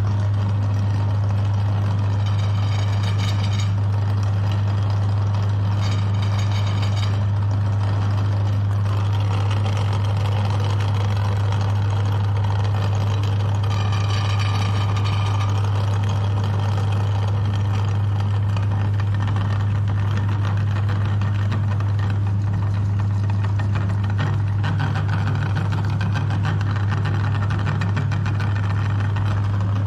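Electric meat grinder motor running with a steady low hum, with uneven grinding and churning noise on top as it works.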